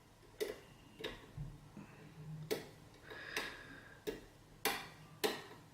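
Sharp metallic clicks, about seven at uneven intervals, from a lock pick tapping and working the pins inside a six-pin KIK lock cylinder held at very light tension; the last two, near the end, are the loudest.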